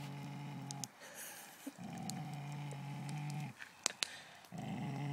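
A dog play-growling during a tug of war over a stick: long, low, steady growls, each about one and a half to two seconds, with short pauses for breath between. There are two sharp clicks about four seconds in.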